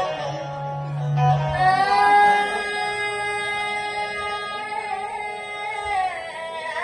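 Song with a woman's singing voice holding one long note over instrumental backing, the note sliding down about six seconds in.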